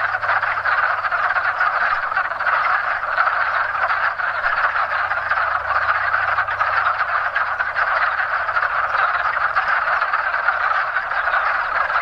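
A dense, unbroken chorus of many male wood frogs giving their mating calls in breeding season.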